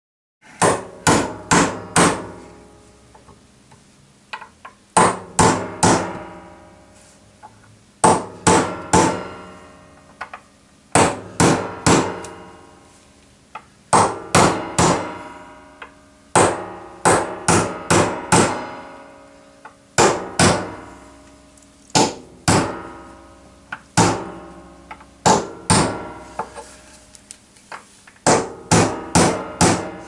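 Claw hammer driving nails into a timber frame, in short bursts of three to five quick blows every few seconds. Each blow rings briefly.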